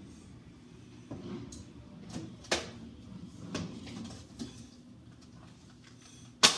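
Knocks and clicks of condiment bottles and jars being handled and set down while the fridge's side-door shelves are cleared out, with one sharp, loud knock near the end.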